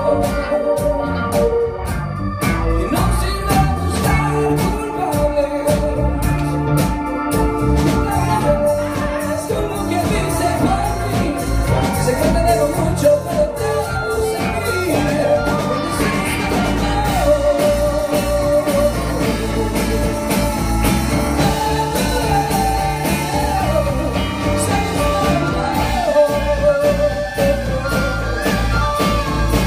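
Live band playing a song, with drums keeping a steady beat under a singing voice.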